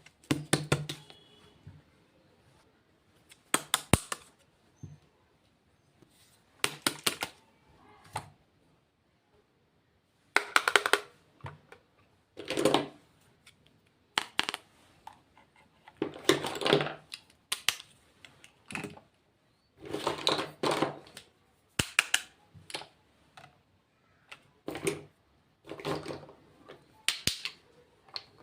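Makeup products and their packaging being handled and opened, giving short clusters of clicks, taps and rattles every two to three seconds.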